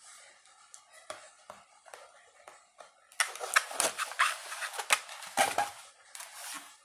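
Toy packaging being handled and pulled open: scattered clicks and scratchy rustling, much busier from about three seconds in.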